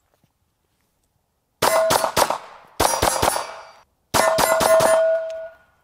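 Ruger SR9 9mm pistol fired in three quick strings, about a dozen shots in all, with a metallic ring hanging on after each string.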